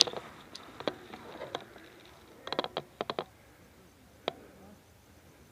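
Scattered light clicks and taps: single clicks, then a quick run of several around the middle, and one more later.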